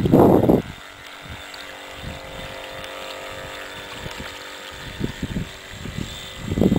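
Motor of a radio-controlled model speedboat running steadily at speed across the water, a thin, even whine. Loud, irregular low buffeting on the microphone covers it at the start and again from about five seconds in.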